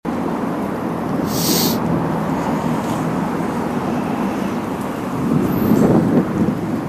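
Street traffic noise: a steady rumble of passing vehicles, with a short sharp hiss about a second in and the rumble swelling louder near the end.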